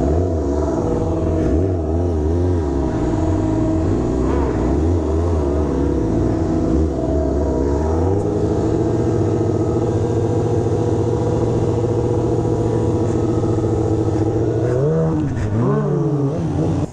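Honda CBR600 F4i sport bike's inline-four engine revving up and down repeatedly, then holding a steady note for several seconds, with a couple of quick revs near the end.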